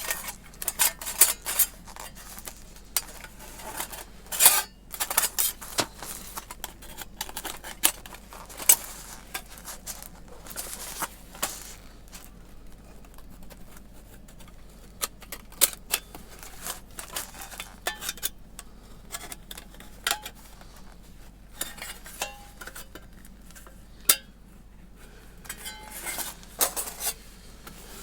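Thin titanium fire-pit plates clinking and clattering irregularly as the parts are handled and fitted together, some knocks ringing briefly.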